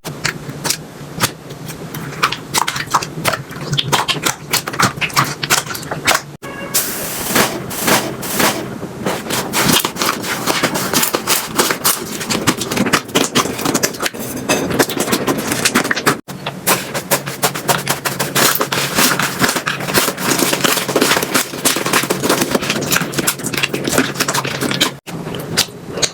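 Slime being squeezed and worked by hand: a dense, rapid run of crackling and popping clicks, with brief breaks where one clip cuts to the next.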